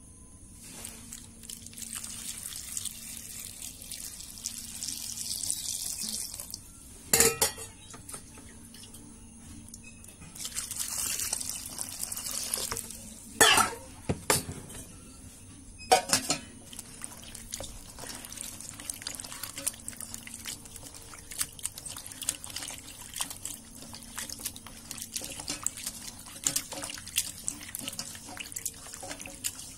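Tap water running into a stainless steel colander of chopped vegetables as they are washed. Four sharp metallic knocks come in the middle, then dripping, trickling water and small clinks as the vegetables are moved about.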